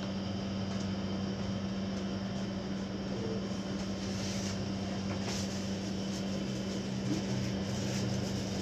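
A steady machine hum with a constant low tone.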